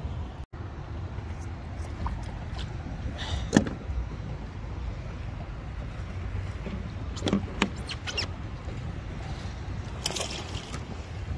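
Low wind rumble on the microphone, with a few knocks and rattles of gear being handled in a kayak; the loudest knock comes about three and a half seconds in, with others around seven and ten seconds.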